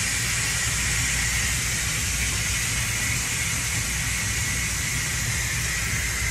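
Nitrogen tank blowing off: pressurised nitrogen gas venting through its pressure relief in a steady hiss with a whistling edge.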